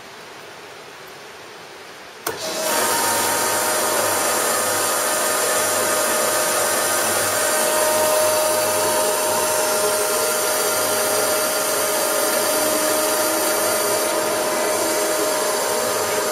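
The table feed drive of a Union BFT125/5 horizontal boring machine cuts in with a click about two seconds in. It then runs steadily as the table traverses left to right at low feed: a hiss with a steady whine and a low hum.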